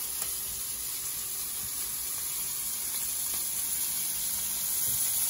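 Sea scallops sizzling steadily as they sear in hot oil and a little bacon fat in a cast iron skillet, about a minute into browning the first side.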